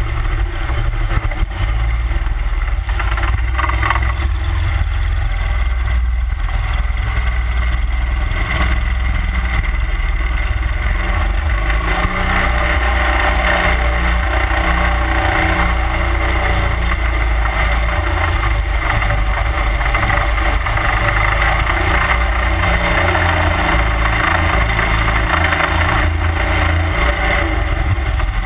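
31 hp Mud Buddy Hyperdrive surface-drive mud motor running steadily at cruising speed, pushing a jon boat along under way.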